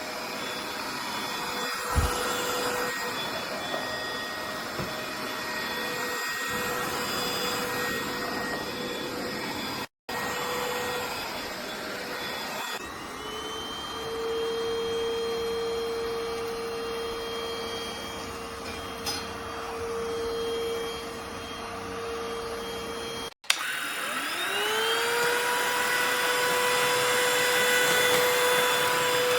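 Bieiao cordless stick vacuum running with a steady motor whine and airflow hiss, with a single knock about two seconds in. The sound cuts out abruptly twice; after the second cut the motor spins up again, its whine rising in pitch and then holding steady.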